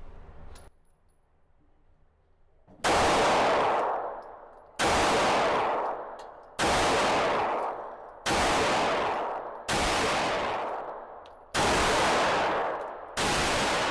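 Glock 43X 9mm pistol fired in slow, deliberate single shots, seven of them starting about three seconds in, roughly one every one and a half to two seconds. Each shot is a sharp crack with a long echoing tail.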